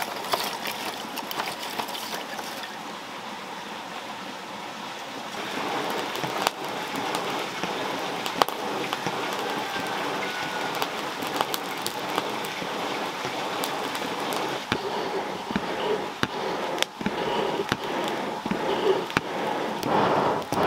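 Lumps of charcoal clinking as they are handled. From about five seconds in, a charcoal fire in a small clay forge crackles with many sharp pops over a steady rush as a bellows blows air into it.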